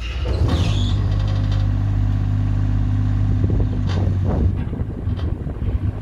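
JCB 8014 mini excavator's diesel engine running steadily while the boom and dipper arm move on the hydraulics. Brief clunks and squeaks from the working arm come about half a second in and again about four seconds in.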